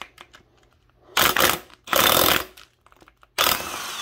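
A power tool on a socket breaking loose the connecting-rod cap bolts of a BMW M54 engine: a few light clicks, then three short bursts of the tool running, about a second in, two seconds in and near the end.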